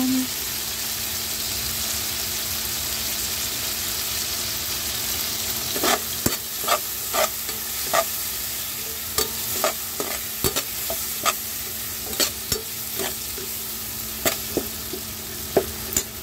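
Tomatoes and onions sizzling steadily in a honeycomb-textured metal wok. From about six seconds in, a slotted metal spatula stirs them, clinking and scraping against the pan in sharp, irregular strokes.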